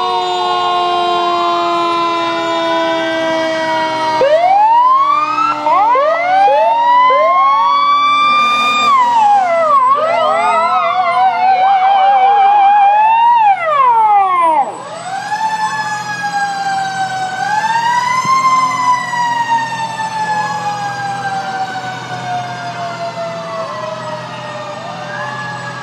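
Fire truck sirens sounding together: several overlapping rising and falling wails, with a fast yelp about ten seconds in. The loudest stretch cuts off abruptly about halfway through, leaving one siren wail that rises and then slowly falls away.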